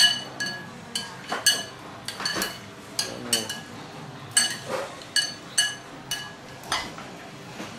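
Chopsticks and a metal spoon clinking against a ceramic bowl while mixing meat in a marinade: a string of irregular sharp clinks, each ringing briefly.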